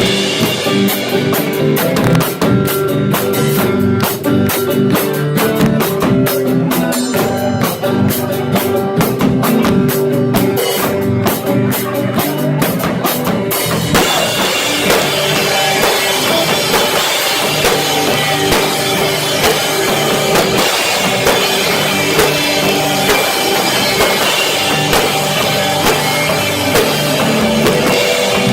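Live rock band playing loud with drums, bass and guitar: rapid drum hits stand out for the first half, then the full distorted band comes in about halfway through. Recorded through a cheap phone microphone, so the sound is harsh and clipped.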